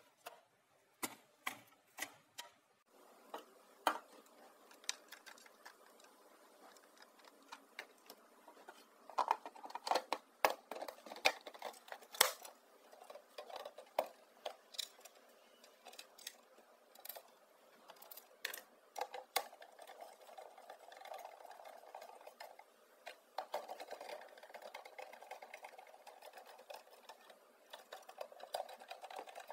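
Small air-conditioner condensate drain pump motor running steadily, starting about three seconds in and getting louder in the last third, among irregular sharp clicks and taps.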